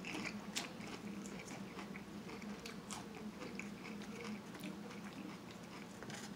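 Close-up mouth sounds of chewing a mouthful of seafood salad, with irregular wet clicks and light crunches. Light clicks of a plastic fork picking through the foam takeout container are heard along with it.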